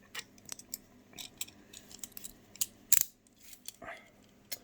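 Beyblade Burst top being assembled by hand: a scattered series of small, sharp clicks and snaps as its parts are fitted and twisted together, the loudest about three seconds in.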